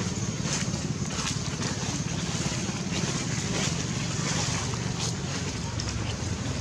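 Wind buffeting the microphone: a steady low rumble with a hiss over it, and a few faint ticks.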